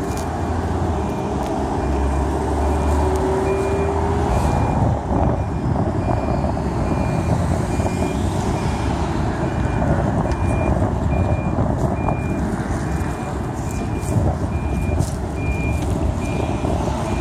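Backup alarm of a mini excavator at roadworks beeping steadily, a little more than once a second, over continuous street traffic. A Maserati Quattroporte's engine rumbles past about two to four seconds in.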